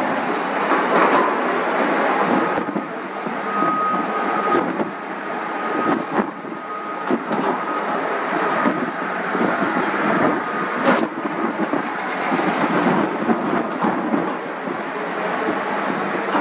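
Lockheed Martin F-35A fighter's single Pratt & Whitney F135 jet engine at taxi power: a steady loud rushing roar, with a thin whine that comes in about three seconds in and fades out around eleven seconds, and scattered crackles.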